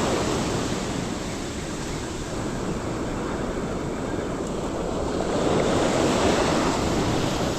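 Ocean surf washing onto a beach, with wind on the microphone. The wash grows louder about five seconds in as a wave comes up the shore.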